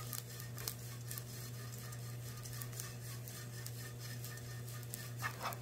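Wooden spatula stirring small dried anchovies in an oiled frying pan: a dry, scratchy rustle with scattered light crackles, over a steady low hum.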